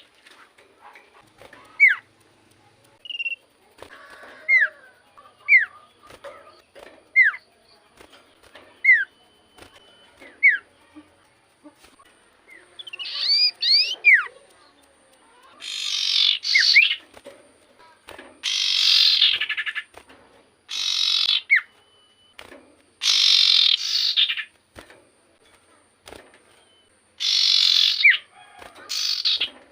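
Common iora (cipoh) calling: a run of short, falling whistled notes, one every second and a half or so, then from about halfway loud, harsh rasping chatters of about a second each, repeated several times.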